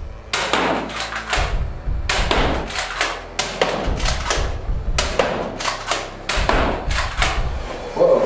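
Nerf N-Strike Elite Disruptor blaster being primed and fired again and again: a quick, uneven string of sharp plastic clacks and pops, with darts knocking against the target board.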